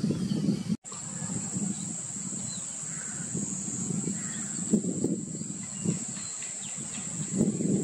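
Outdoor wetland ambience: faint bird calls over a steady high-pitched hum and a low background rumble. There is a brief dropout just under a second in.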